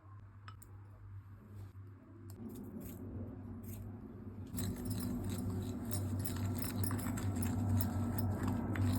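Kitchen cooking sounds: a few light clicks and knocks over a low steady hum, then from about halfway a dense crackling that grows louder.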